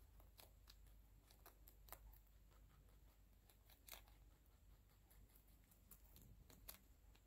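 A rabbit nibbling and crunching a cauliflower leaf: faint, irregular crisp bites and chews, a few sharper crunches among them.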